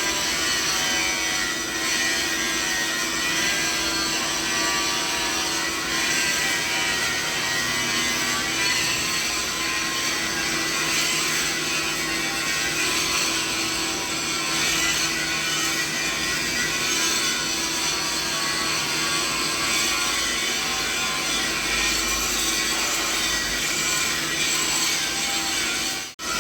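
Steady mixed machinery noise: a continuous whir and hiss spread over low-mid to high pitches, with several steady hum tones layered in. It cuts out for an instant near the end.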